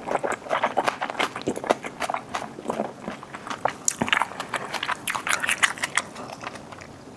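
A person chewing a mouthful of bossam (boiled pork with fresh kimchi and raw oysters), with many quick, wet clicks and smacks. The chewing is busiest past the middle and thins out near the end.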